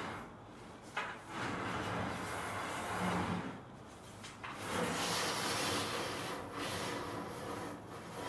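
Sintered stone countertop slab scraping as it is slid across the tops of wooden base cabinets, in two long pushes with a short knock just before the first.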